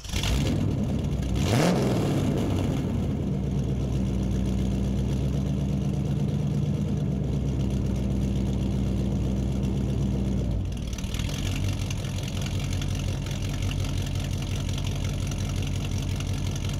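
Car engine starting up abruptly, revving once with a rising pitch about a second and a half in, then running steadily; about ten seconds in it drops a little and settles to an idle.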